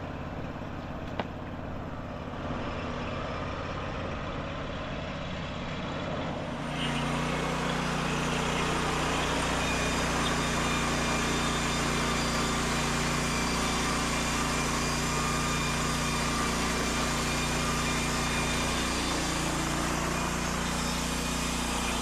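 EZ Boardwalk 40 portable bandsaw mill's engine running steadily at a low level. About six and a half seconds in, the sound steps up to a louder, fuller running noise that holds steady as the band blade cuts through a log.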